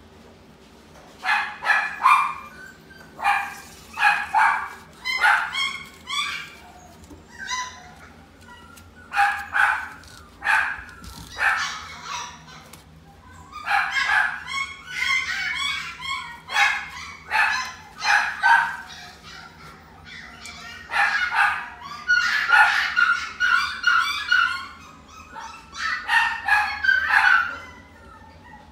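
Chihuahua puppy barking and yipping in short, high-pitched bursts, mostly in clusters of two to four with brief pauses between them.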